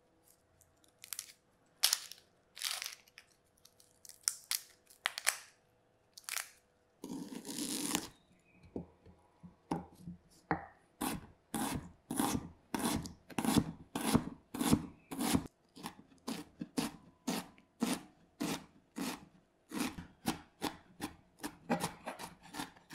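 A red onion's papery skin being peeled, with scattered crackles and a longer tearing rasp, then a chef's knife chopping the onion on a wooden cutting board in steady strokes, about two to three a second.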